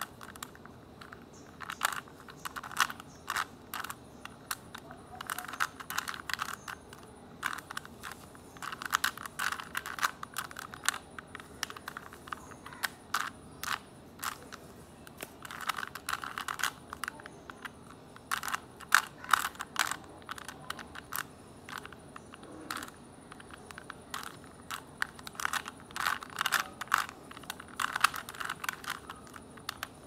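Plastic 3x3 Rubik's cube being turned by hand: quick runs of clicking and scraping as the layers snap round, with short pauses between runs of turns.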